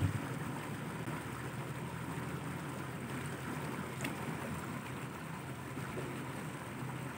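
Steady low outdoor rumble with a faint click about four seconds in.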